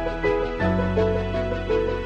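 Instrumental background music with held bass notes and a repeating melody over a regular pulse.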